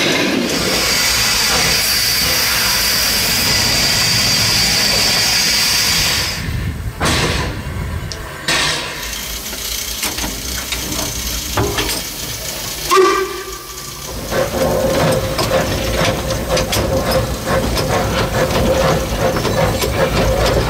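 Steam locomotive L 509, an 1877 2-4-0 side tank, hissing steam loudly for about the first six seconds. After that come quieter footplate sounds with scattered knocks. From about two-thirds of the way in, the locomotive's running noise settles into a steady hum.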